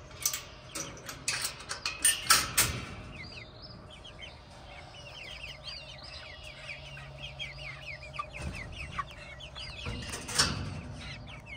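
Backyard hens clucking softly in a run of short, quick calls that rise and fall in pitch. Several sharp clicks and knocks sound in the first few seconds, and one more comes near the end.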